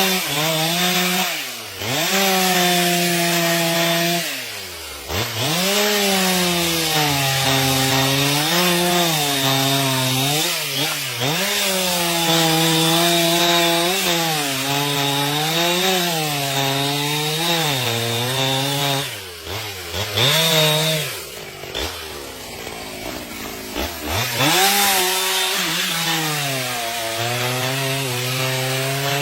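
Chainsaw cutting into a tree, its engine note sagging and recovering about once a second as the chain bites into the wood. Twice it drops off and then revs back up: once about a fifth of the way in, and for longer about two-thirds of the way in.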